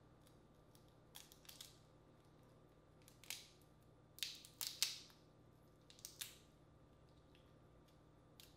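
Shell of a boiled crawfish cracking and snapping as it is peeled by hand, in a handful of short, crisp crackles, the loudest a quick cluster about halfway through.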